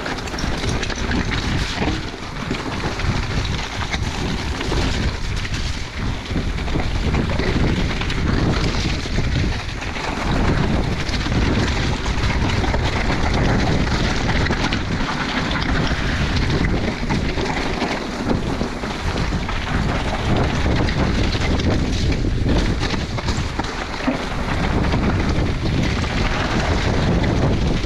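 Wind buffeting the camera microphone while an e-mountain bike rides a wet trail, with continuous tyre rumble and frequent rattles and knocks from the bike over rough ground.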